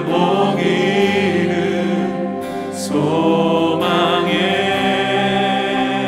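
Live contemporary worship music: several singers hold a slow, sustained melody line in Korean over strummed acoustic guitars and band, with a new sung phrase beginning about halfway through.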